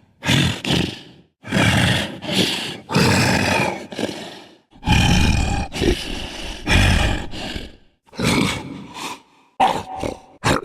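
A person's voice making Totoro-style creature sounds: a string of short, rough roars and grunts with brief gaps between them.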